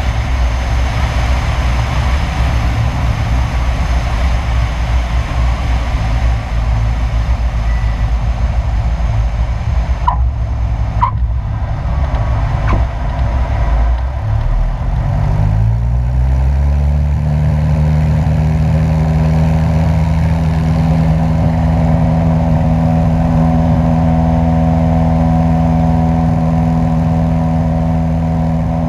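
Single-engine piston light plane on a touch-and-go: wind rush over a low engine drone at reduced power on the landing, with three short chirps around touchdown. About fifteen seconds in, the engine is throttled up, its drone rising in pitch and then holding steady at full power for the takeoff and climb.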